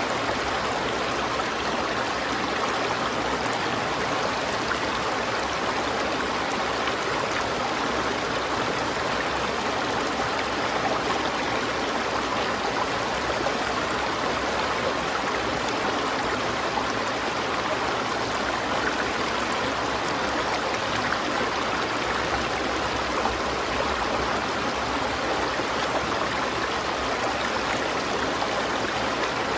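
A river flowing over rocks: steady rushing and babbling water.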